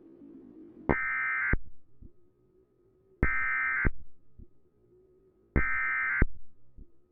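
Emergency Alert System digital data tones: three identical short bursts of a harsh electronic buzz, evenly spaced about two seconds apart. This is the end-of-message code that closes the alert test.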